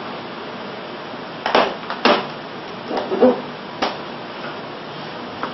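Kitchen knife knocking and scraping on a cutting board while cutting raw chicken: a handful of short knocks, the loudest just past the middle, over a steady background hum.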